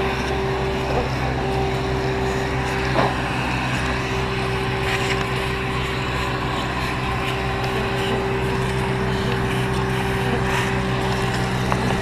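Bee vacuum's motor running with a steady drone while bees are sucked up from the hive. A light knock comes about three seconds in.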